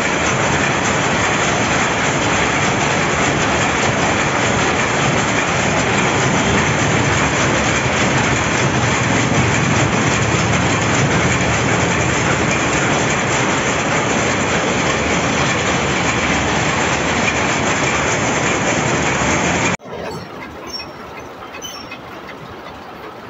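Jacquard power looms running: a loud, dense, steady mechanical clatter. Near the end it drops abruptly to a much quieter background.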